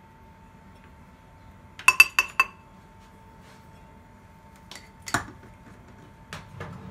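Utensil clinking against a glass bowl of blended soup: a quick run of four ringing taps about two seconds in, then a single louder clink a little past the middle, with a few fainter knocks around it.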